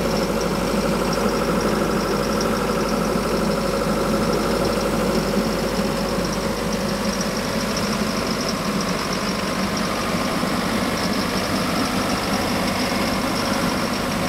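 Portable air compressor's John Deere four-cylinder diesel engine idling steadily.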